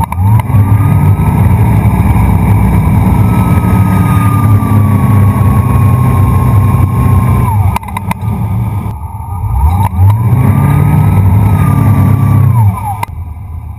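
Wakeboard boat's engine throttling up hard to pull a rider up, rising in pitch and then holding steady at speed. About eight seconds in it throttles back, then it revs up again and drops back to a lower idle near the end.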